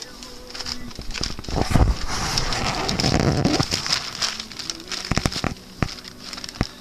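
Newspaper crinkling and rustling as puppies paw, drag and tear at it, loudest for a couple of seconds about one and a half seconds in, with a few sharp ticks and taps near the end.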